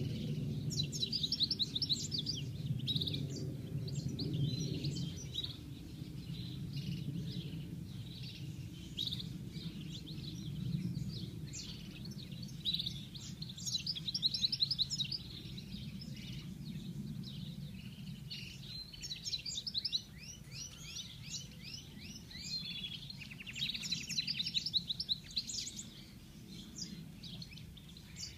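European goldfinch singing: phrase after phrase of rapid, high twittering trills with short pauses between them, over a low background rumble that weakens in the second half.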